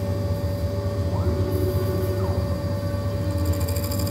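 CNC milling machine spindle running steadily with a constant hum and a steady whine, spinning a white plastic workpiece against a fixed lathe-style cutting tool. A short whine rises, holds and falls again about a second in, as a machine axis moves the workpiece down.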